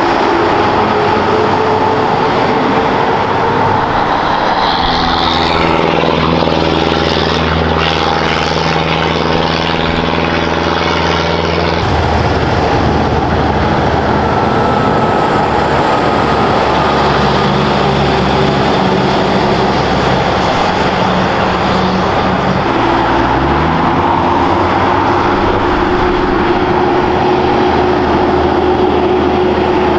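Heavy diesel trucks passing close by one after another on a hill road, engines pulling steadily. The sound changes abruptly about twelve seconds in, and about 23 seconds in an engine's pitch rises, as a truck revs up after a gear change.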